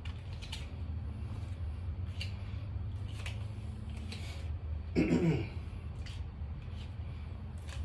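A man's short grunt, falling in pitch, about five seconds in, during a squat exercise. Underneath is a steady low hum with a few faint light taps.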